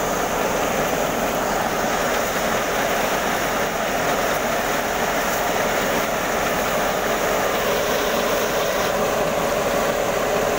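Paddy threshing machine running steadily as bundles of rice stalks are fed into its threshing drum: a continuous, even mechanical din with no pauses.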